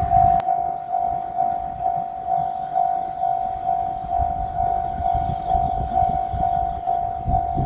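Japanese level-crossing warning bell ringing: one clear electronic tone repeating steadily, a bit over two strikes a second, over a faint low rumble.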